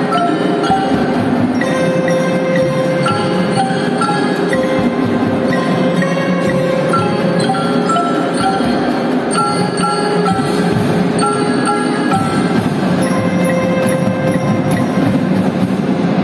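A marching band's front ensemble plays a continuous melodic passage on marimbas and other mallet keyboards, a steady stream of short, struck, ringing notes.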